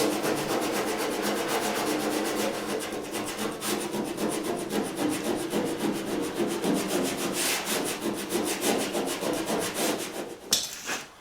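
40-grit sandpaper scuffing bare steel on a car body panel by hand in quick, even back-and-forth strokes, roughing up low spots so body filler will stick. It stops about ten and a half seconds in.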